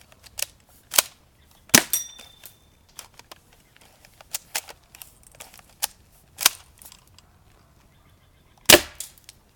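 Airsoft shotgun being fired repeatedly: a string of sharp snaps and clicks at uneven spacing, the loudest about two seconds in and again near the end.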